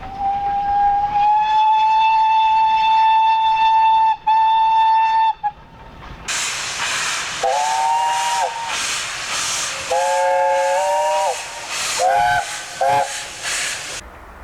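A steam locomotive whistle gives one long single-note blast with a brief break about four seconds in. Then a loud steam hiss starts suddenly, and a chime whistle sounds three notes together in two longer blasts and two short toots near the end.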